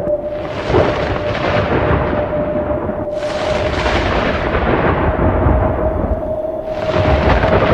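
Thunder sound effect: three rolls of thunder, one near the start, one about three seconds in and one near the end, each opening with a sharp crack and fading into a low rumble, over one steady held tone.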